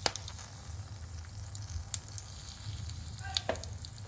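Whole spices (bay leaves, cinnamon sticks) and a pinch of asafoetida frying in hot refined oil in a kadai: a light sizzle broken by scattered sharp pops and crackles, a few louder ones near the start, midway and near the end.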